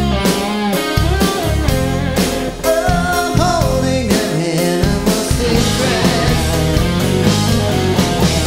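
Live rock band playing: drums, electric guitars and keyboards, with a singing voice over them.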